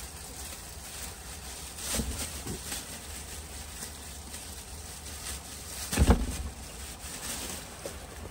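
Rubbish being gathered out of a plastic waste bin in a cupboard: quiet handling and rustling, a knock about two seconds in and a louder thump about six seconds in, over a steady low rumble.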